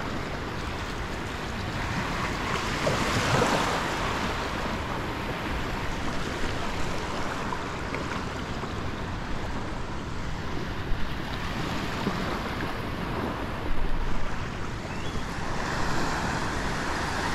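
Steady wash of water and small waves close around a wading angler, with breaking surf and some wind on the microphone; a few brief louder swells or splashes come through, about 3 and 14 seconds in.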